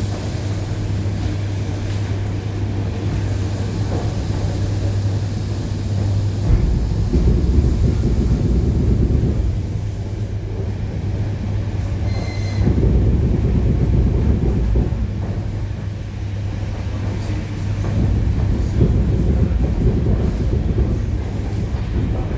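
Inside an ED9E electric train car: a steady electrical hum for the first six seconds or so, then a heavier rumble of the running gear on the track that swells and eases several times. A short high beep sounds about twelve seconds in.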